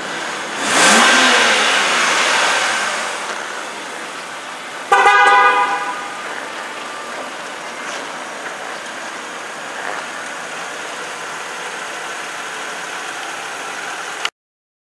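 BMW 328i convertible's 3.0-litre straight-six revs up about a second in, rising in pitch, then settles over the next couple of seconds. About five seconds in, the car's horn gives one short toot of under a second. The sound cuts off suddenly near the end.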